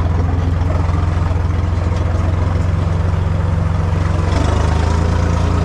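Tractor diesel engine running steadily while the tractor drives along a field, heard close from the driver's seat; the engine note steps up slightly about four seconds in.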